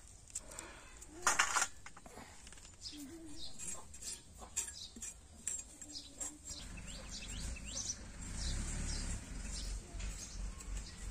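Small birds chirping over and over, in quick, high, falling notes. A short, loud rustle comes about a second and a half in, and a low rumble starts about two-thirds of the way through.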